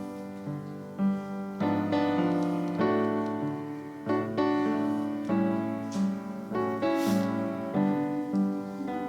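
Piano playing a slow hymn tune, a new chord struck about once a second and left to ring and fade.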